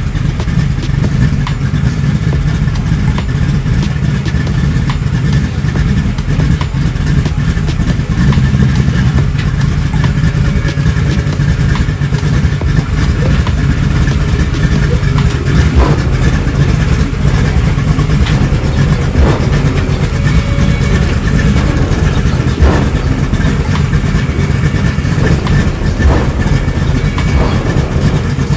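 Buick Regal G-body's engine running steadily at low revs with a deep exhaust as the car backs slowly down off a car-hauler trailer, with a few short knocks in the second half.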